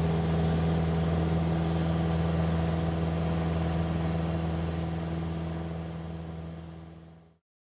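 Small single-engine piston airplane's engine and propeller droning steadily, heard from inside the cockpit in flight, fading out over the last two seconds.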